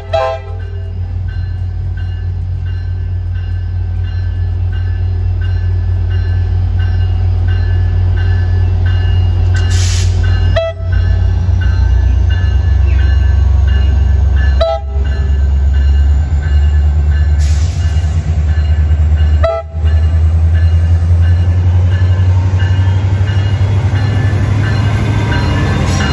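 Tri-Rail diesel locomotive pulling into the station, its engine a deep steady rumble that grows louder as it approaches, with the train horn sounding. The sound cuts out briefly three times.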